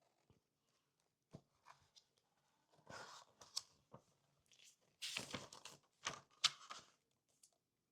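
Picture-book pages being handled and turned: several papery rustles and swishes, the longest about five seconds in.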